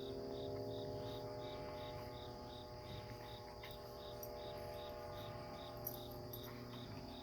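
Insects chirping: a steady high trill with a short chirp repeating about twice a second, over a faint steady hum.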